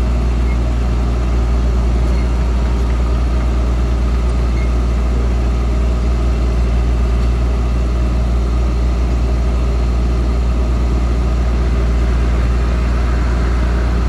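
Heavy diesel engine running steadily at idle, a deep even drone with no change in pitch.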